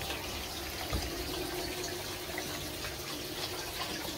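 Pump-fed water running steadily down a gold sluice box, with a faint steady hum and a soft knock about a second in.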